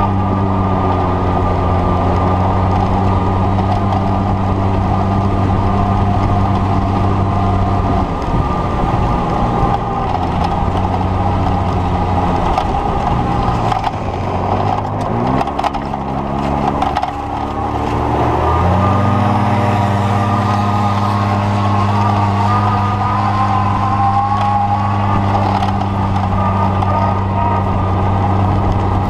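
Motor running steadily at a constant pitch; about eight seconds in it drops away, then its pitch climbs back up over a few seconds and it runs steady again for the rest of the time.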